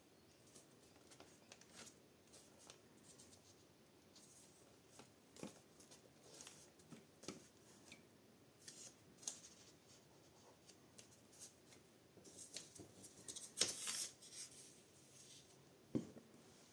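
Faint handling of torn paper scraps being glued onto the pages of an old book: scattered light rustles and taps, with a louder spell of paper rustling about three-quarters of the way through.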